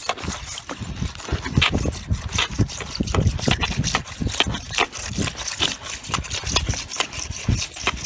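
Water and loose mineral sediment pouring out of a hole cut in the bottom of a water heater tank, with many irregular clicks and knocks over a low rumble. The tank is still draining a load of built-up minerals.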